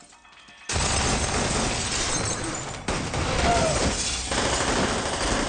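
A barrage of gunfire and shattering glass that starts suddenly just under a second in and runs on as one dense, continuous noise.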